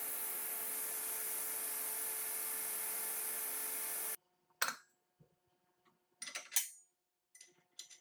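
A woodworking power tool running steadily with a high hiss, stopping abruptly about four seconds in. Then a few sharp wooden knocks and clatters.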